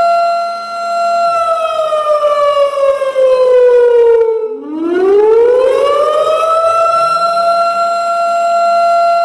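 Warning siren wailing: a steady high tone that slides slowly down in pitch, breaks off for a moment about four and a half seconds in, then climbs back up and holds steady before starting to fall again near the end.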